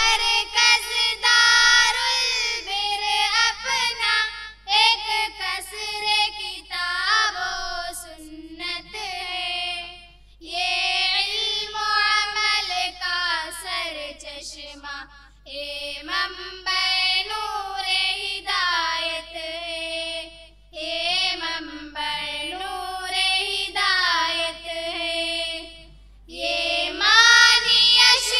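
Schoolgirls singing the school tarana (school anthem) together into a microphone, in sung phrases with short breaths between them. A steady low mains hum runs underneath.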